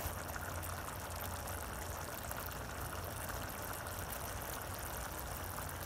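Coconut chicken curry bubbling at a boil in a pan, a steady bubbling hiss with a low hum underneath.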